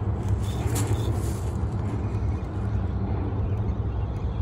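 Steady low rumble of road traffic, with a brief high hiss about half a second in.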